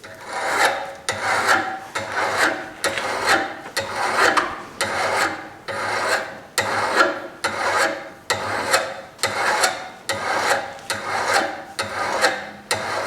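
Hand file rasping back and forth across a hardened steel chisel, about one stroke a second. The file bites slowly because the tempered steel is hard.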